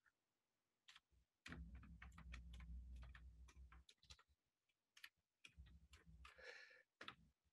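Faint typing on a computer keyboard: quick, irregular key clicks as a line of code is typed.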